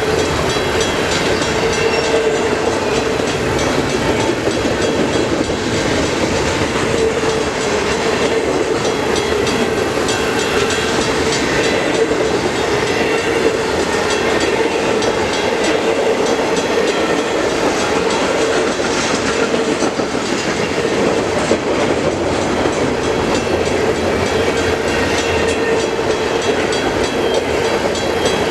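Freight cars of an intermodal train rolling past, with steady wheel-on-rail noise and clickety-clack over the rail joints, and a steady ringing tone running through it.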